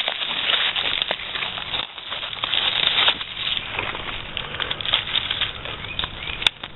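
Irregular rustling and crackling of dry leaf litter and undergrowth as morels are handled and picked from the forest floor, ending in a single sharp click near the end.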